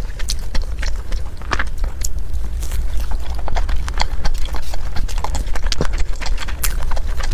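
Close-miked eating sounds: chewing with irregular wet mouth clicks and smacks, over a steady low hum.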